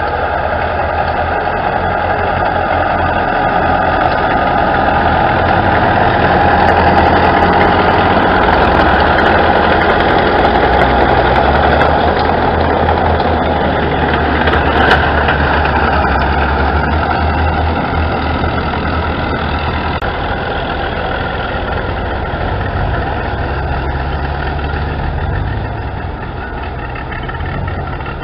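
Engines of historic military vehicles running as they drive past: a small open tracked vehicle, then an old army truck. The sound is loudest around the middle and eases off near the end.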